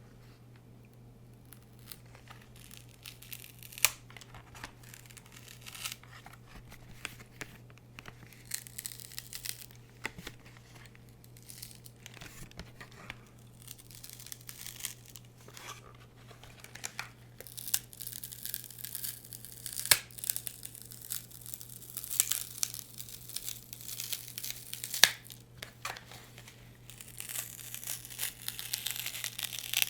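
Close-up crinkling and crumpling of a crinkly material, irregular crackles that grow denser and louder in the second half.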